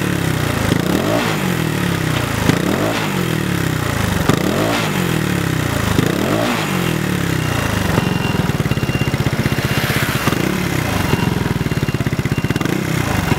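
Motorbike engine with a 58.5 mm big-bore cylinder kit and a stainless-steel aftermarket exhaust, blipped five times in quick succession, the revs rising and falling roughly every two seconds. It then settles to idle, with a couple of smaller blips near the end.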